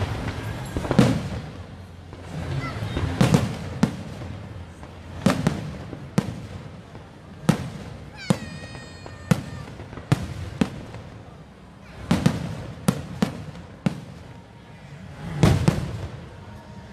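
Aerial fireworks shells bursting overhead: a string of sharp bangs at uneven intervals of about one to two seconds, some in quick pairs, each trailing off into a low rumbling echo.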